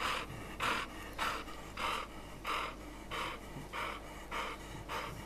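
A dog panting steadily with its mouth open, about three breaths every two seconds.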